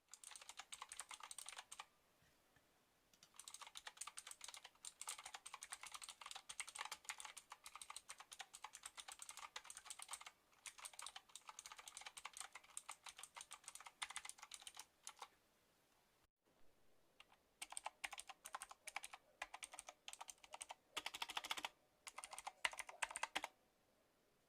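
Fast typing on a Redragon Kumara K552 mechanical keyboard with clicky Outemu Blue switches, in several long runs of keystrokes broken by short pauses.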